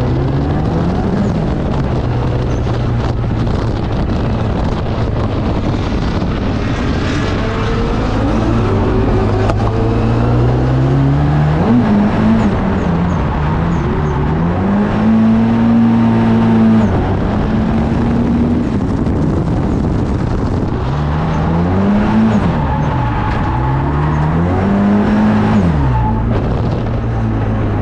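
Drift car's engine revving up and falling back over and over as the throttle is worked. It holds high revs for a couple of seconds near the middle, then drops, climbs twice more and falls away near the end.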